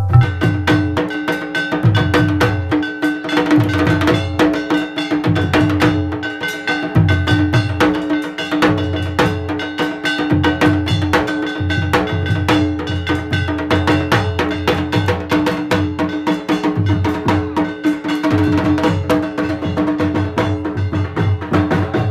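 Dhak drums beaten with sticks in a fast, dense rhythm, with metal percussion clanging along and a steady held tone underneath.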